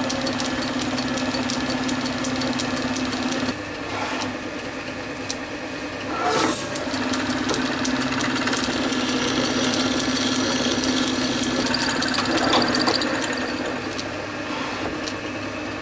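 Small metal-turning lathe running with a steady motor hum, which falls away about three and a half seconds in and comes back about six and a half seconds in. Later a flat file is worked against the spinning brass valve spool, adding a light scraping hiss over the hum.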